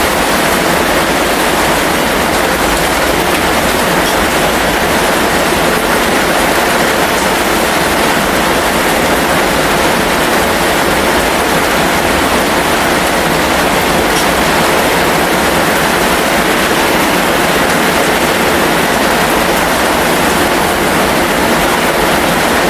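Steady heavy rain, a continuous even rushing hiss with no thunder claps or separate drops standing out.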